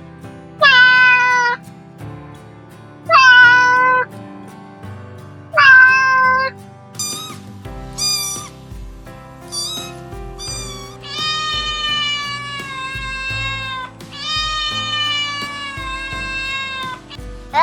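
Domestic cat meowing: three meows about two and a half seconds apart, then four short higher-pitched mews, then two long drawn-out meows, over background music.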